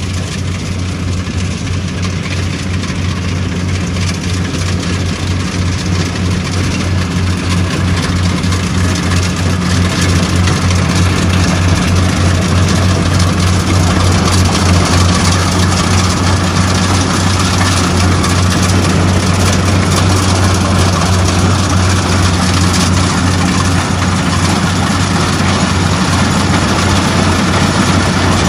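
Crawler rice combine harvester running steadily as it harvests, a low, even engine hum with the rattle of its cutting and threshing machinery, growing gradually louder as the machine approaches.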